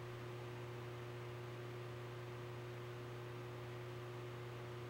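Steady low electrical hum with a fainter higher tone over a constant hiss, unchanging throughout.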